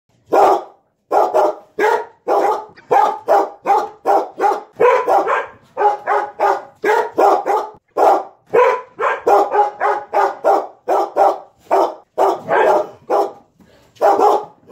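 Dog barking repeatedly, about two sharp barks a second, beginning suddenly out of silence: a barking-dog alarm sounding as a countdown timer runs out.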